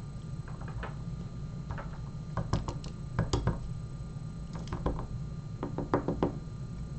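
Small metallic clicks and taps in several short clusters as the pins are worked out of a disassembled MTL Interactive lock, with tools and pins knocking against the lock's housing. A steady low hum runs underneath.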